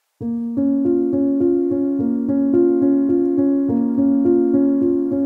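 Background music on a piano-like keyboard: a gentle pattern of repeated notes, about three a second, over held chords. It starts just after a brief silence.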